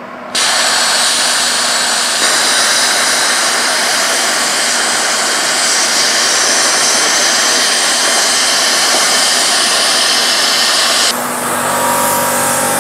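Saber 70 CHP plasma cutter's arc cutting through 10 mm carbon steel plate: a loud, steady hiss that starts suddenly right at the start and holds for about eleven seconds, cutting off near the end once the piece drops free. A quieter hiss carries on after the arc stops.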